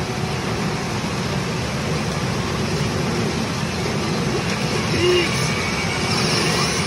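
Steady noisy din of pachinko machines in play, with a short electronic tone about five seconds in.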